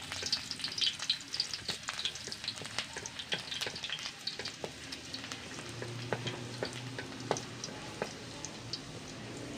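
Sliced garlic sizzling and crackling in hot oil in a wok, with irregular sharp pops as it is stirred with a wooden spatula.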